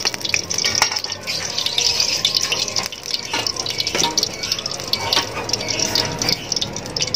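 Hot cooking oil sizzling and crackling in a wok, with a steady hiss and many small pops.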